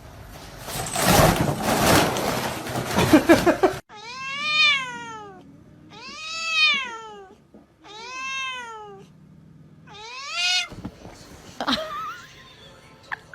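A stretch of loud rushing noise, then a cat giving four long meows about two seconds apart, each rising and then falling in pitch. A few faint clicks follow near the end.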